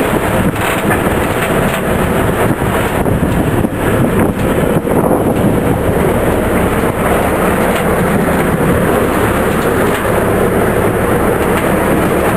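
A boat under way on choppy water: its motor runs steadily under a loud, even rush of water and wind.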